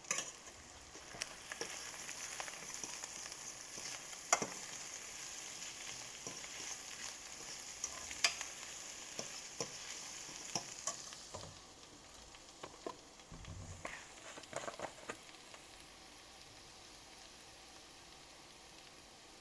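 Lion's mane mushroom crumble with onions and peppers sizzling in a stainless steel sauté pan while a fork stirs it, with sharp clicks and scrapes of the fork against the metal. The sizzle dies down about two-thirds of the way through, leaving only a few clicks.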